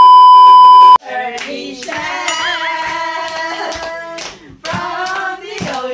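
A loud, steady 1 kHz test-tone beep, the kind played with colour bars, lasting about a second and cutting off sharply. Then singing with scattered hand claps.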